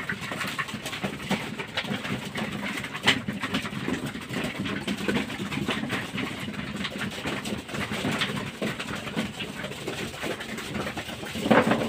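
Flock of racing pigeons feeding: many beaks pecking mixed seed off a concrete floor and wooden troughs in a dense clatter of small clicks, with a sharper knock about three seconds in, and some pigeon cooing among it.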